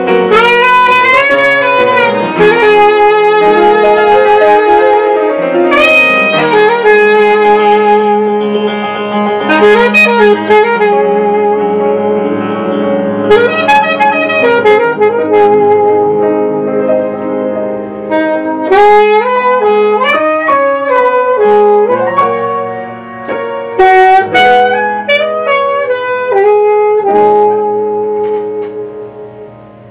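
Alto saxophone playing a melody with vibrato, accompanied by grand piano. The music grows quieter near the end.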